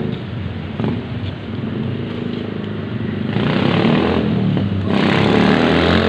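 Roadside traffic: motor vehicle engines running and vehicles passing close by, growing louder from about halfway through as nearer vehicles go past.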